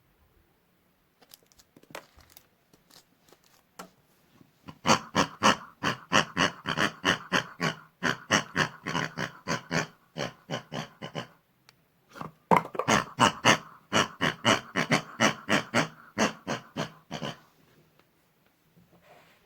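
Pig-like oinking sounds, repeated quickly at about four or five a second, in two long runs with a short break between them.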